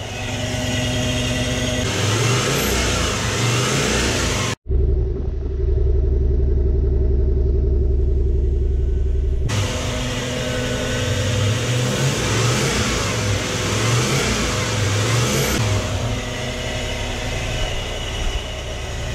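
Toyota 1UZ-FE 4.0-litre V8 running just after its first start on a base map in an aftermarket ECU, idling with the throttle blipped so the engine note rises and falls. The sound breaks off abruptly just before 5 s into a deeper, steadier drone, then switches back to the rising and falling note near 10 s.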